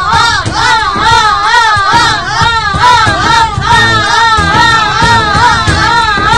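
A high voice singing a sustained melody with a wide, fast-wavering vibrato, over a steady low musical accompaniment.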